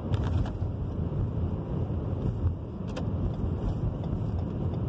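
Car cabin noise while driving: a steady low rumble of road and engine, with a few brief clicks near the start and another about three seconds in.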